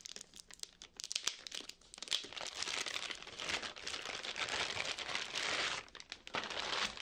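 Clear plastic bag crinkling as a power supply is slid out of it by hand: scattered crackles at first, then a dense, continuous crinkle for about four seconds.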